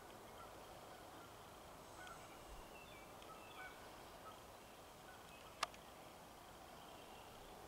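Near-silent outdoor ambience with a few faint, short, high chirps, and one sharp click about three-quarters of the way through.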